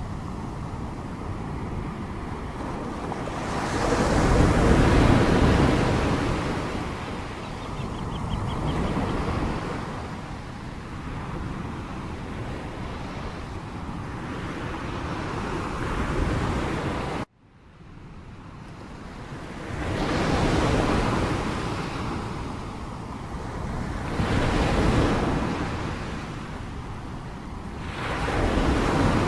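Sea waves washing in, the noise swelling and ebbing every few seconds as each wave comes in. About 17 seconds in the sound cuts out abruptly, then fades back up.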